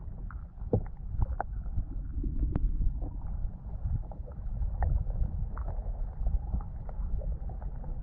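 Underwater ambience through a submerged camera: a muffled low rumble of moving water, with scattered small clicks and ticks.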